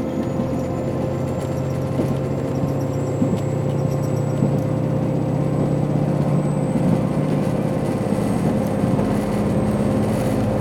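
KiHa 261 series diesel railcar's N-DMF13HZH engine running under load as the train pulls away, heard from inside the car: a steady engine drone with a faint high whine that slowly rises in pitch.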